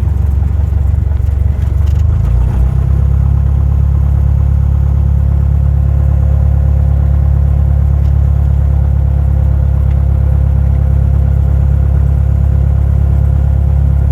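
Cessna 172 Skyhawk's piston engine and propeller running steadily, a loud low drone, with a slight change in the drone about two seconds in.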